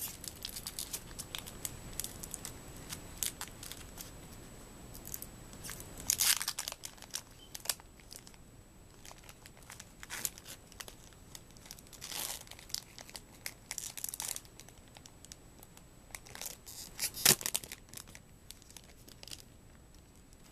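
Foil booster pack wrapper being torn open and crinkled: irregular crackling rustles, loudest in bursts about six seconds in, again around twelve to fourteen seconds, and once more near seventeen seconds.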